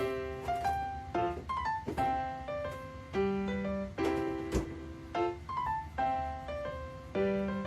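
Background piano music, a light melody of struck notes in a repeating phrase. There is one sharp tap about halfway through.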